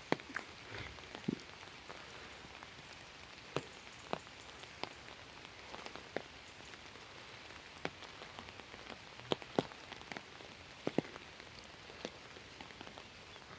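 Steady rain falling, a soft even hiss with irregular sharp taps of single drops landing close by, a dozen or more spread unevenly through.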